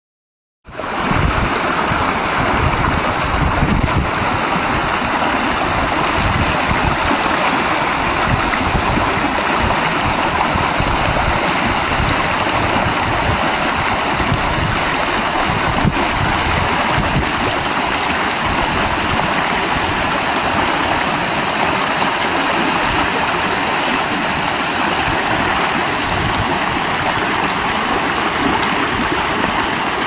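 Waterfall and rocky moorland stream rushing in full flow, swollen after heavy rain, a steady loud roar of water that starts abruptly about half a second in. Gusty wind buffets the microphone underneath.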